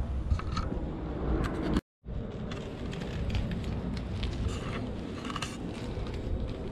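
Steady low rumbling outdoor noise with scattered light crackles and rustles. The sound cuts out completely for a moment just before two seconds in, then resumes.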